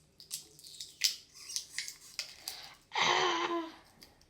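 Slime and putty being handled: a string of sharp little clicks and sticky pops, then a louder, rougher squelch lasting about half a second about three seconds in.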